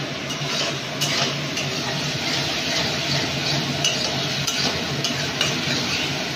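A spatula stirring and scraping spice paste and tomatoes around an aluminium kadai, with short clicks of the spatula against the pan over a steady sizzle of the masala frying in oil.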